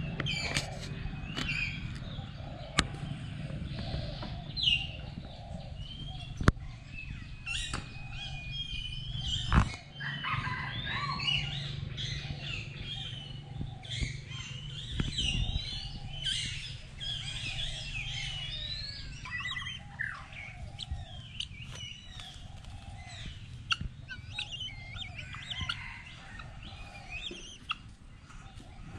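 Several birds chirping and calling at once, with many short rising and falling notes, over a steady low hum and a few sharp clicks.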